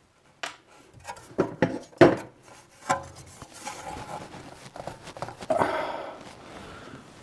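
Metal tools and parts clinking and knocking against the rusty fan motor of a mini split heat pump's outdoor unit as it is taken apart: a string of separate sharp knocks in the first few seconds, then a rougher scraping about two-thirds of the way through.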